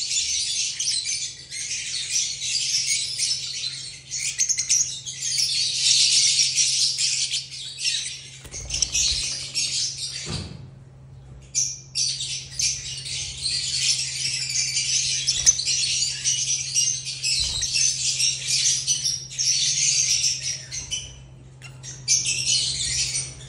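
A group of lovebirds chattering: dense, high, continuous twittering that stops for about a second halfway through and briefly again near the end. A steady low hum runs underneath.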